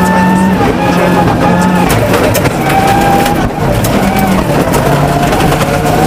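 Ford Focus WRC's turbocharged four-cylinder rally engine running hard at high revs, heard from inside the cabin, its pitch stepping and dipping briefly with gear changes and lifts. Gravel rattles and clicks against the car throughout.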